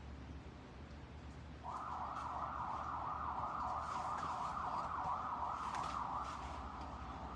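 Emergency-vehicle siren from outside, starting suddenly a moment in with a fast up-and-down wail that eases near the end. Faint paper-handling clicks sit under it.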